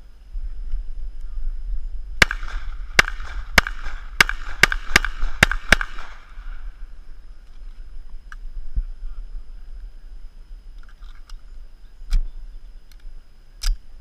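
A .45-calibre Springfield Armory TRP Operator 1911 pistol firing a string of eight shots in about three and a half seconds, at an uneven pace. Two more sharp cracks come near the end.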